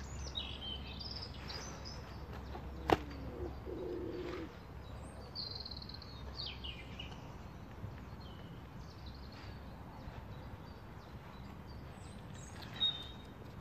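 Small birds chirping and trilling on and off, with one sharp click about three seconds in.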